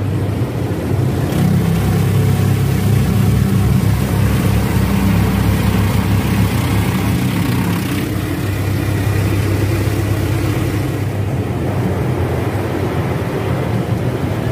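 Automatic tunnel car wash heard from inside the car's cabin: a steady, loud rumble of machinery with water spraying and washing over the glass and body.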